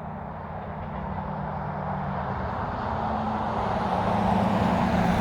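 A vehicle approaching: a steady low engine drone over a rushing noise, growing gradually louder.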